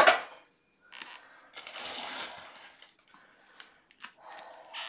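A sharp clatter, then about a second of rustling and scraping from things being handled, with a few light clicks.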